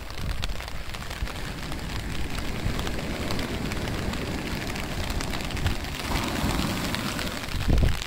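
Surf from small knee-to-thigh-high shore-break waves washing up a sand beach, over a steady low rumble, with a louder low burst near the end.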